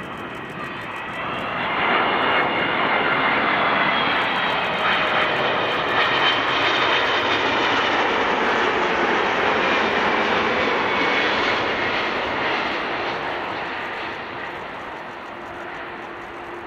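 Boeing 777 jet airliner passing close by, its engines giving a broad rush with a high whine on top. The noise swells about two seconds in, holds loud for about ten seconds, then fades over the last few seconds.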